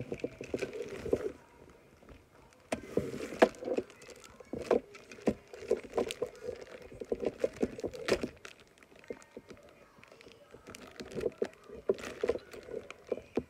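Clear plastic wrapping crinkling and rustling as a toy train still sealed in its bag is pressed and handled, in uneven spells of crackles with quieter gaps around two seconds in and again past the middle.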